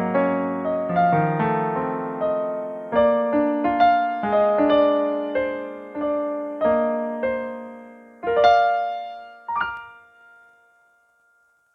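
Piano voice of a Yamaha PSR-A5000 arranger keyboard playing a melody over sustained chords. The closing phrase ends on a struck chord and a final high note that rings and fades out.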